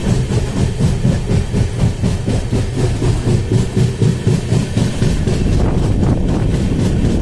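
Passenger train coach running at speed, heard from its open doorway: wheels clattering on the track in quick, uneven strikes over a steady low rumble.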